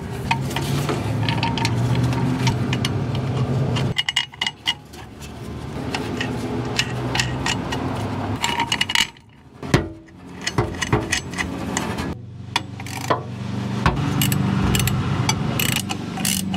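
Small metal clinks and scrapes of nuts and bolts being fitted by hand at the flange joint of a new catalytic converter, over a low steady hum.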